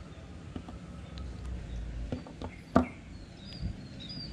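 Faint clicks and taps from the plastic and metal parts of a Shimano Sienna 2500FE spinning reel being handled during disassembly. One sharper click comes near the three-second mark.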